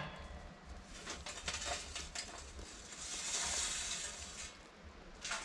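Hot charcoal poured from a chimney starter into a drum smoker's charcoal basket: small pieces clinking and clattering, then a louder rushing patter about three seconds in as the bulk of the coals slides out.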